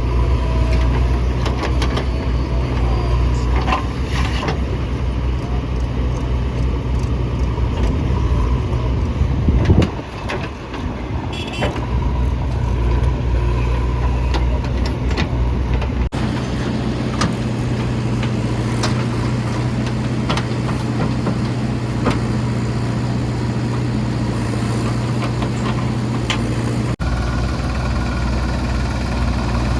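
Heavy diesel machinery, backhoe loaders and tractors, running steadily with a deep hum and scattered clanks and knocks; the sound changes abruptly about ten and sixteen seconds in.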